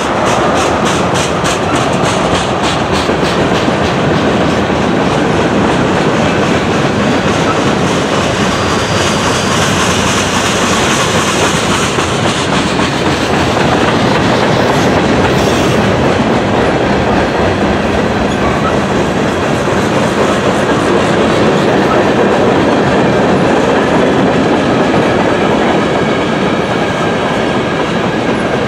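Freight cars rolling past close by: steel wheels of tank cars, boxcars and hoppers clicking over rail joints in a steady clickety-clack, over the continuous running noise of the train.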